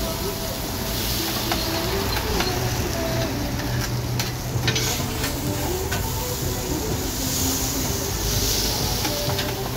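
Noodles sizzling on a hot flat-top griddle while two metal spatulas scrape and toss them, with sharp clacks of steel on steel every so often.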